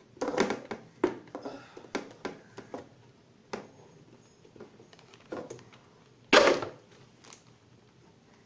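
Plastic toilet cistern being handled while its float valve is fitted: an irregular string of light plastic knocks and clicks, with one louder knock about six and a half seconds in.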